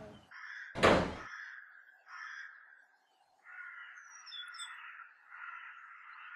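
A metal security gate shuts with a single loud bang about a second in, followed by faint bird chirping in the background.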